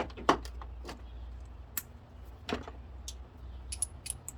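Scattered sharp clicks and taps of plastic air-intake tube fittings being handled and pushed into place around a car's throttle body, with a small cluster near the end, over a steady low hum.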